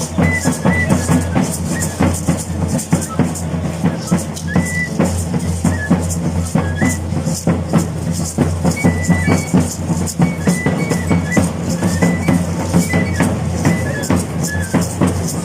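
Traditional Chiapas carrizo cane flute playing short high melodic phrases over a continuous beating drum.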